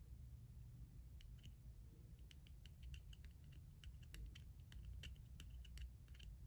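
Faint, irregular small metal clicks and ticks of a small screwdriver turning a tiny screw in the top of a flat petrol cigarette lighter, coming more often after about a second.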